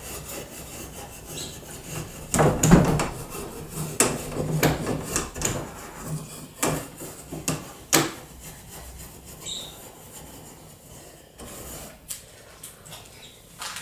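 A brush scrubbing and dabbing dark furniture wax into the carved crevices of chalk-painted wood, in irregular strokes with a few sharp knocks.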